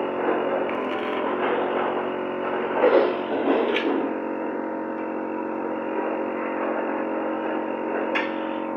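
Arc welding machine humming steadily under a rough hiss, with a couple of louder bursts about three seconds in.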